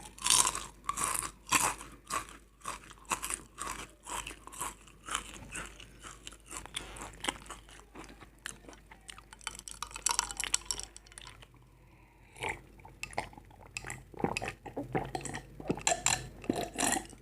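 Close-miked chewing and crunching of crisp food, most likely potato chips eaten with instant noodles: a quick run of crisp crunches with a short lull about two-thirds of the way through.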